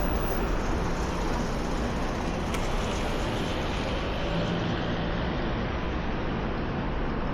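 Steady road traffic on a busy city street: cars and other vehicles passing, with a constant low rumble.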